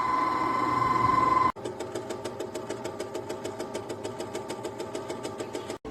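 COWSAR countertop nugget ice maker running: a steady motor hum with a high whine, then after an abrupt cut a fast, even mechanical pulsing of about eight to ten beats a second.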